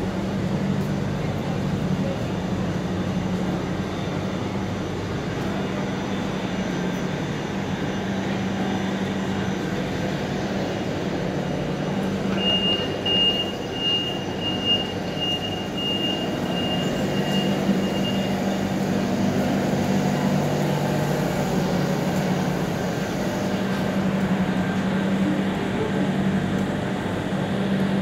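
Steady electric hum of a standing Class 460 Siemens Desiro electric multiple unit, its onboard equipment running while it waits with doors open. A quick series of high beeps sounds for about six seconds in the middle.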